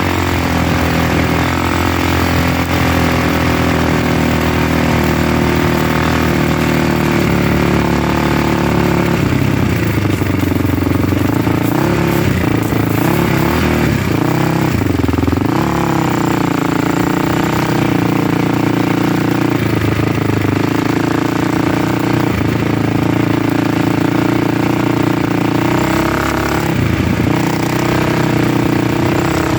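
Motor vehicle engine running steadily under way, its pitch dipping and rising a few times as the speed changes.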